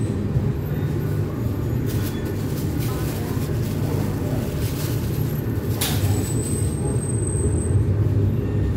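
Steady low rumble of kitchen machinery running, with a brief plastic-bag crinkle about six seconds in as the bag of grated cheese is handled.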